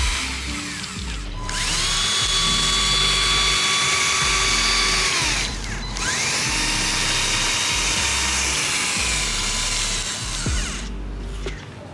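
Small electric motor whining as it spins up, holds a steady high pitch for a few seconds, and winds down, twice.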